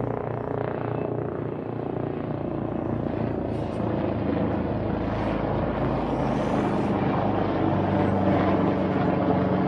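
HM Coastguard AW189 search-and-rescue helicopter flying over, its rotor beat and turbine hum growing steadily louder as it comes closer.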